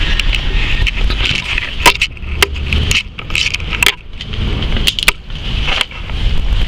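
Wind rumbling on the microphone of a handheld camera, with handling noise and a scattering of sharp clicks and knocks as the camera is moved around.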